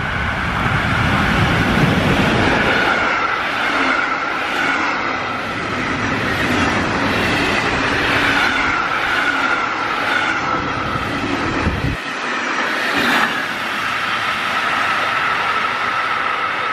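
Express train's passenger coaches passing close by at speed, with a regular clickety-clack of wheels over the rails and a steady high ringing tone throughout. The sound changes abruptly about twelve seconds in, where the low rumble drops away.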